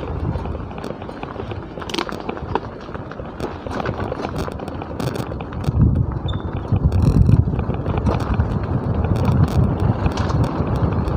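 Wind buffeting the microphone of a moving motorbike, with road noise and scattered small knocks; the low buffeting grows heavier about six seconds in.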